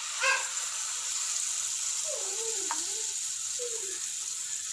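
Jackfruit appam batter sizzling steadily as it fries in hot ghee in a pan.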